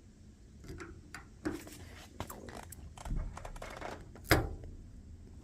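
Small clicks and knocks of a door lock and its clips being handled and tried against a car door, with one sharper knock about four seconds in.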